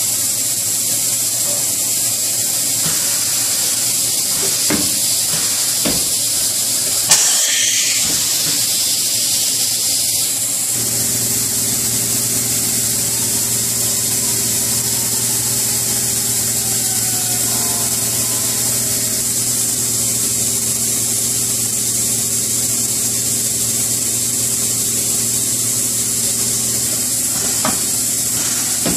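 Kitamura Mycenter 1 vertical machining center running, with a steady high hiss. There is a short loud burst about seven seconds in, and from about eleven seconds a steady low motor hum joins the hiss.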